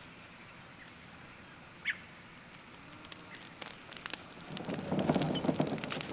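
Bonfire of garden prunings crackling as it catches, the crackle building up from about halfway through. A single short bird chirp about two seconds in.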